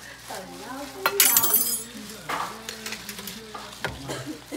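Metal ladle scooping braised beef, vegetables and juices out of a plastic oven bag into a ceramic bowl: wet stirring and clinking against the dish, with a brief loud sharp scrape about a second in.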